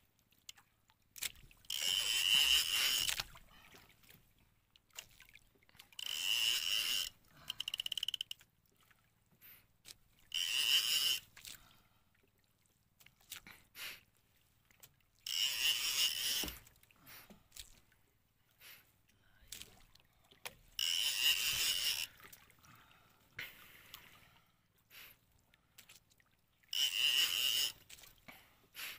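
Fishing reel whirring in repeated bursts of about a second, roughly every four to five seconds, as a hooked fish is pumped and wound up from deep water.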